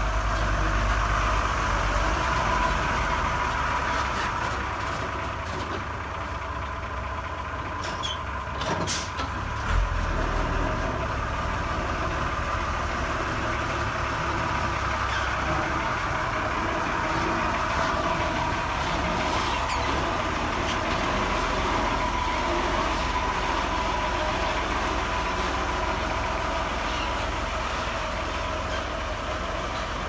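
Diesel engine of a Hyundai dump truck running steadily close by as the truck moves slowly on a dirt track. A few sharp knocks come about eight to ten seconds in.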